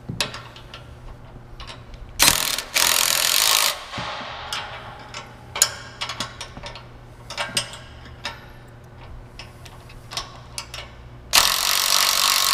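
Cordless impact driver with a socket running in two bursts, about two seconds in and again near the end, driving mounting bolts tight against a wrench holding the nut. Between the bursts, small metal clicks and knocks of the wrench and tool on the bracket.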